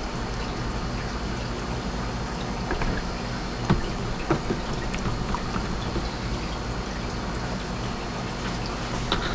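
Steady running, splashing water with a low hum under it, and a few light knocks and taps, the loudest a little under four seconds in.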